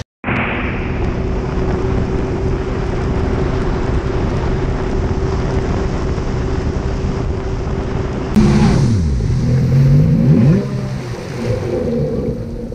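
Jet ski engine running steadily at speed, with water rushing and wind on the microphone. About eight seconds in, the sound switches abruptly to a jet ski engine revving up and down, its pitch falling and rising.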